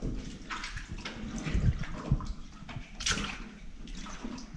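Welly boots wading through shallow water on a flooded bunker floor, a slosh and splash with each step.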